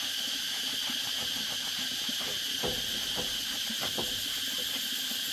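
Steady, high-pitched chorus of insects, with a few faint knocks and taps around the middle.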